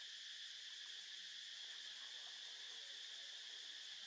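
Steady, high-pitched drone of insects calling in chorus.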